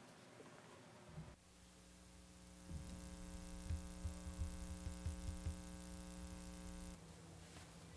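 A steady hum with many even overtones starts about a second and a half in and stops suddenly about a second before the end. A run of low thumps sounds through the middle of it.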